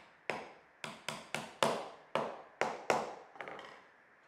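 A soft-faced mallet tapping a slim aluminium profile down into a tight groove in a dark block, about ten sharp taps at uneven spacing with a few lighter ones near the end.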